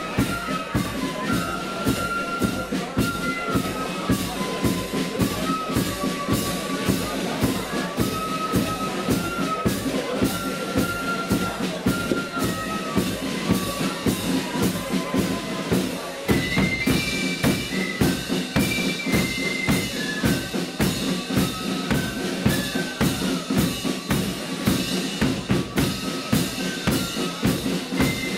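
Flute band playing a march tune in unison, with bass drum and cymbals keeping a steady beat. About halfway through there is a brief break, and the melody then moves higher.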